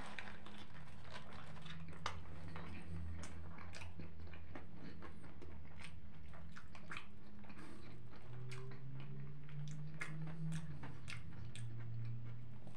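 A person biting into a shawarma and then chewing it with open-mouthed, wet smacking and clicking mouth sounds, over a low steady hum.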